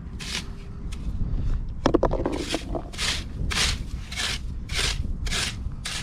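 Metal cockle rake's tines scraped through wet, gritty sand in quick, even strokes, a little under two a second. There is a short clattering rattle about two seconds in.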